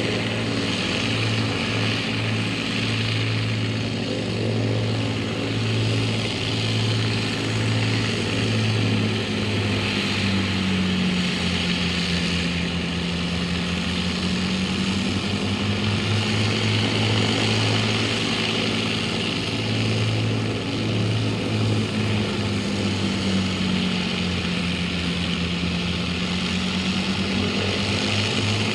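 Rolls-Royce Merlin-engined propeller aircraft running, a steady pulsing drone whose engine note sags and climbs back twice.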